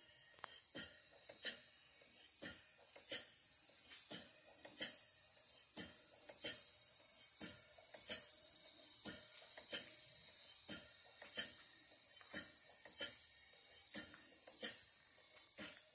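A 1902 Wilcox & Gibbs sewing machine driven by a small Sipp steam engine, running slowly. It gives a sharp mechanical tick about every three quarters of a second, in a slightly uneven pairing, over a steady high hiss.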